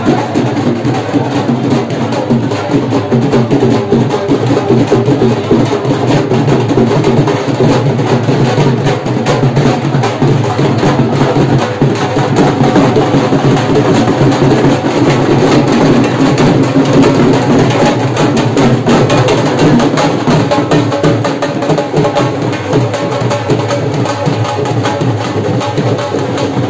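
Several Punjabi dhol drums beaten with sticks in a dense, unbroken rhythm, the thin-stick strokes clicking sharply over the deep bass beats.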